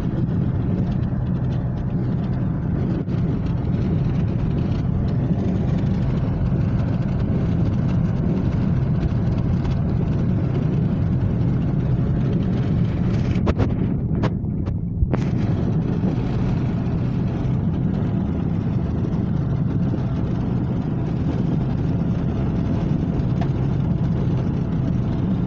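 Motorcycle engine running steadily at cruising speed, with road and wind noise. About halfway through, the higher part of the sound briefly drops out and comes back.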